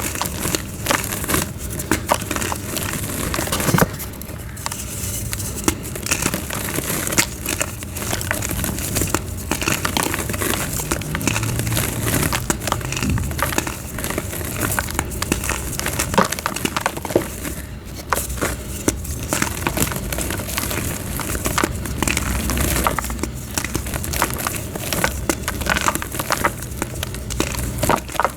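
Soft blocks of gym chalk being crushed and crumbled into powder: a continuous dense crackling and crunching with many small sharp snaps.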